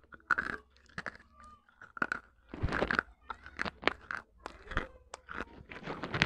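Broken clay pot shards being bitten and chewed, a run of sharp, irregular crunches and crackles.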